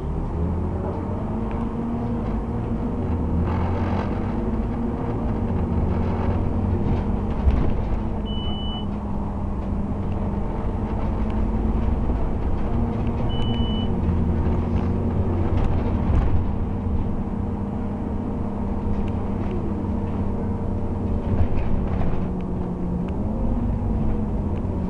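Scania OmniCity bus's diesel engine and drivetrain heard from a passenger seat as the bus drives, the engine note rising and falling several times with speed and gear changes. Two short high beeps, about eight and thirteen seconds in.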